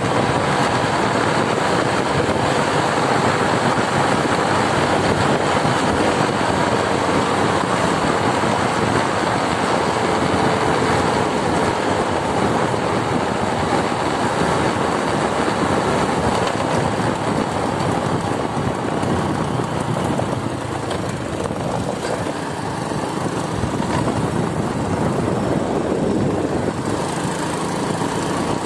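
Motorcycle running at road speed with steady wind rush on the camera microphone, easing slightly about two-thirds of the way through.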